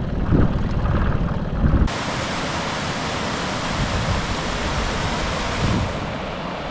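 A low rumble cuts off abruptly about two seconds in. A steady, even rush of flowing stream water follows.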